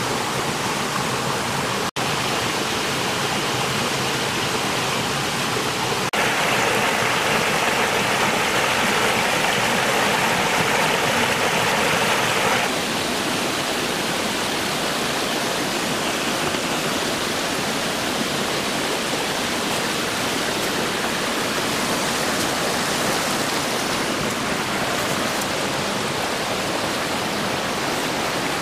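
Shallow mountain stream running over rocks: a steady rush of water, louder and brighter for about six seconds in the middle.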